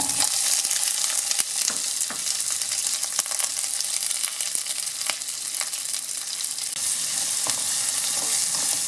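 Cut red onions sizzling as they sauté in hot melted butter in a nonstick wok, with a spatula stirring and scraping them every second or so. They are tipped into the pan just as the sizzle begins.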